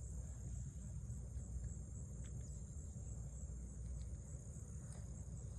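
Steady high-pitched insect chirring, with a low rumble underneath and a few faint ticks.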